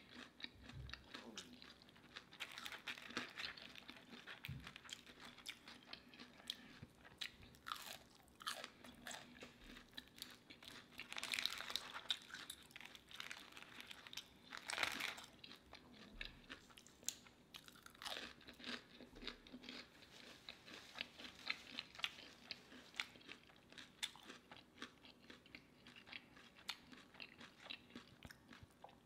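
Close-up chewing and crunching of crispy fried onion rings, a steady run of small crisp crunches with a few louder bites near the middle.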